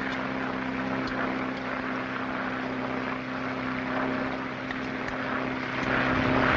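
Steady drone of a twin-engine propeller airplane's engines, holding one even pitch. Near the end a louder rushing noise comes in over it.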